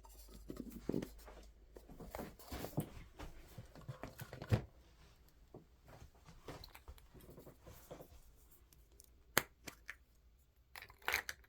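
Hands handling and unwrapping a small packaged item: soft rustling with scattered light clicks and taps, and a sharp click about nine and a half seconds in.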